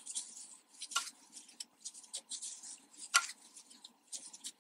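Faint rustling and small ticks of yarn being worked with a metal crochet hook, with two sharper ticks, one about a second in and one about three seconds in.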